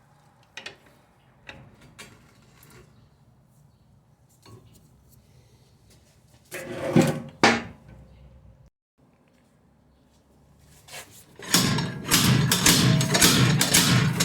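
Metal wheel hub being knocked loose from the steering knuckle: scattered light clicks and knocks, two louder knocks about halfway through, then from near the end a fast run of loud hammer knocks.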